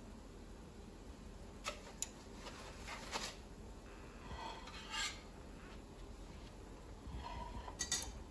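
Faint scraping and a few light clicks of a utensil against a foil-lined baking tray and a plate as crumb-coated chicken cutlets are lifted onto the plate.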